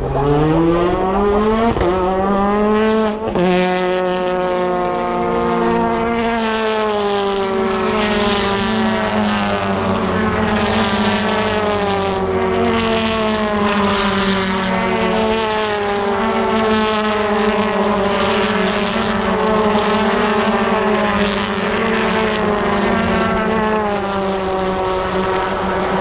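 BTCC touring car engines at full throttle: the revs climb steeply, break briefly just after three seconds, then hold a sustained high note that wavers slowly in pitch as the cars run past.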